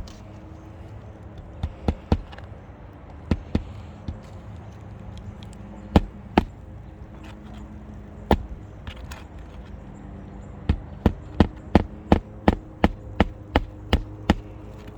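Hammer driving a roofing nail through an asphalt shingle: a few scattered blows, then a quick even run of about a dozen blows, roughly three a second, in the last few seconds.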